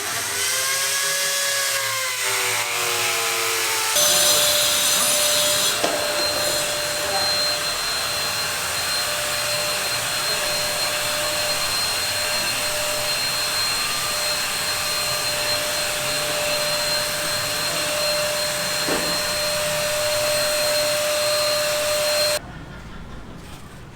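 Electric power tool motor running with a steady whine. Its pitch rises and falls over the first few seconds, then holds steady until it cuts off abruptly near the end.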